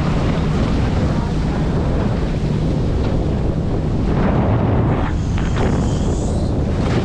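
Heavy wind buffeting the microphone over the steady rush of sea water, as from a moving boat.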